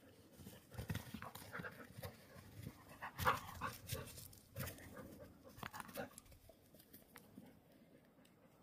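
Dalmatian puppies and an adult Dalmatian playing: a quick string of short dog sounds, loudest about three seconds in, thinning out after about six seconds.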